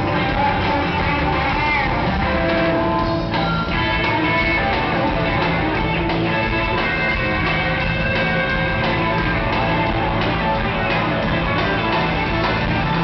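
Live band music played through an arena sound system, led by guitar, as heard from the audience stands.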